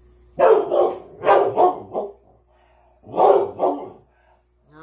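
Dog barking: a quick run of loud barks, a short pause, then another couple of barks about three seconds in.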